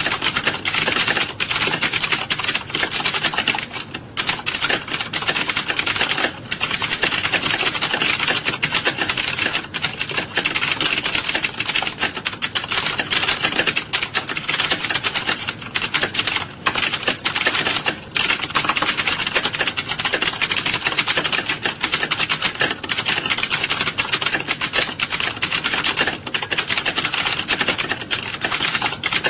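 Many people typing at once on keyboards in a typing class. The keystrokes run together into a dense, continuous clatter, easing off briefly only a few times.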